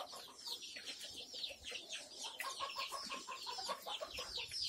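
A flock of Kadaknath and desi chickens calling faintly, with many short, high, falling peeps overlapping throughout. Through the middle comes a run of evenly repeated lower clucks.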